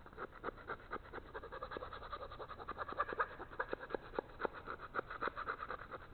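Rat tail file rasping inside a drilled hole in pine 2x4 lumber, quick back-and-forth strokes several a second, filing away tear-out left by the auger bit.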